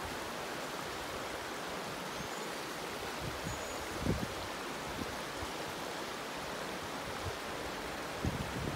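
Shallow river water rushing steadily over rocks and boulders. A couple of brief low thumps come about four seconds in and near the end.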